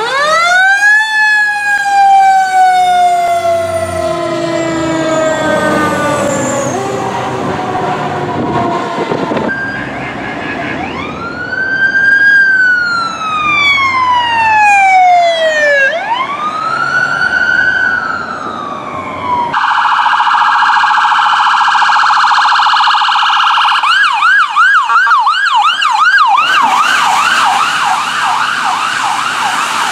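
Emergency vehicle sirens: a wail rising and slowly falling, then after a cut another wail cycling up and down twice. Near the end an ambulance siren switches to a fast yelp.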